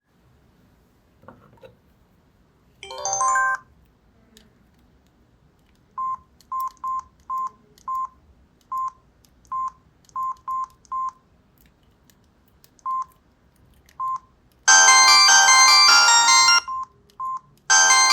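Samsung V200 mobile phone: a short jingle, then about a dozen single key beeps at irregular intervals as its menu is stepped through, then a musical ringtone starts playing loudly. The ringtone breaks off after about two seconds, two more key beeps follow, and a ringtone starts again.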